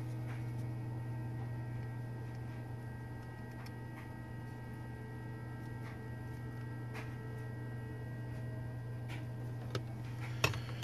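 A steady low hum, with a few faint, light clicks of small metal parts being handled at a soldering bench, and a couple of sharper clicks near the end.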